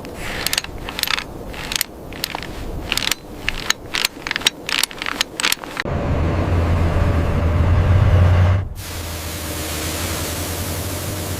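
Irregular sharp knocks and clacks for about six seconds, then machinery running with a loud low hum. About nine seconds in it cuts to a steady hiss over a lighter hum.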